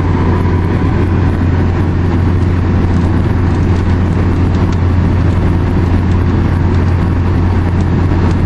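Steady road and engine drone heard inside a car cruising at highway speed, a loud, even low hum that does not change.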